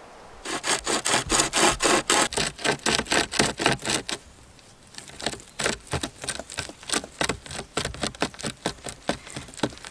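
Bushstar hand-pulled pocket chainsaw, a carbon-steel chain with nylon hand loops, sawing back and forth through a thin branch at about four strokes a second. The sawing pauses briefly about four seconds in, then resumes, quieter and less even.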